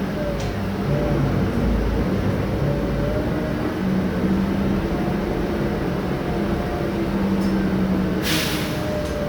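Mercedes-Benz O-500M city bus with its rear-mounted diesel engine running steadily, a low drone with wavering higher tones over it. A short burst of hiss comes about eight seconds in.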